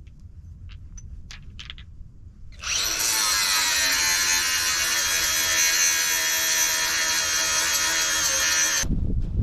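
A handheld power tool runs steadily for about six seconds, starting about two and a half seconds in after a few faint clicks and stopping abruptly near the end, where a low rumble takes over.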